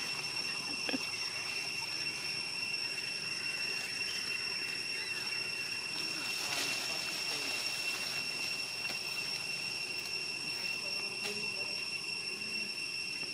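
Steady tropical forest ambience: a continuous high-pitched insect drone held on two unchanging pitches over a low even hiss.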